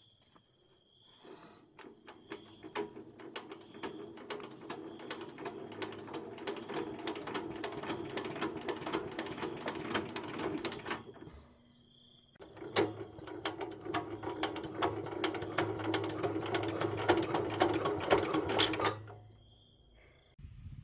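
A small machine clattering rapidly in two spells, one of about ten seconds and one of about six, with a short stop between them.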